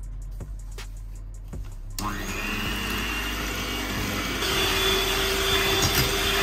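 Electric hand mixer switched on about two seconds in, its twin beaters whirring steadily as they whisk eggs and sugar in a glass bowl.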